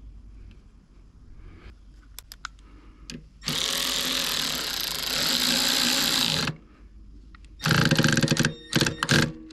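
A power tool, likely a drill or driver run on the brake lever's fastener, running steadily for about three seconds, then in several short bursts near the end.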